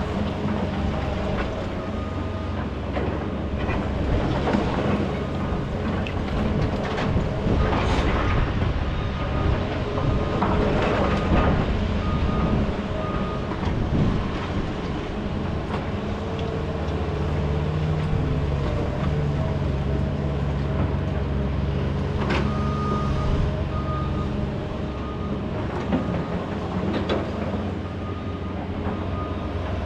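Heavy diesel equipment running steadily under load, with scattered knocks and clattering of broken concrete and steel.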